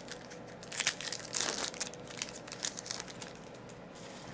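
A trading-card pack wrapper being torn open and crinkled: a dense run of crackles for about two and a half seconds, settling down near the end.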